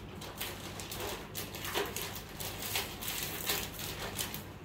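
Clear plastic biscuit packaging crackling in short, irregular bursts as a biscuit tray is pulled out of its box.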